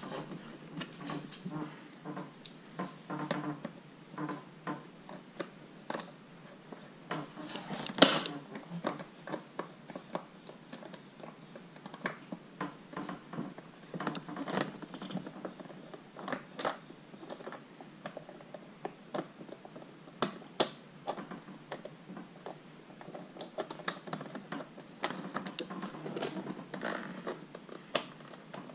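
Irregular small clicks, scrapes and rattles of hand work on car parts, with one sharp knock about eight seconds in.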